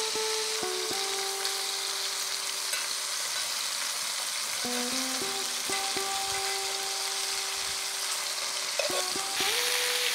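Venison patties sizzling as they fry in oil in a cast-iron skillet over a campfire, the sizzle getting louder near the end. Soft music with held notes plays underneath.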